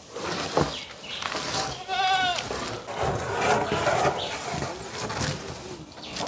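An animal bleating once, a short wavering cry about two seconds in, amid outdoor rustling and a couple of sharp knocks.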